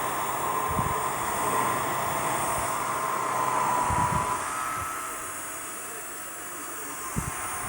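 Handheld hair dryer running: a steady rush of blown air with a motor whine, a few dull bumps, and getting quieter about five seconds in.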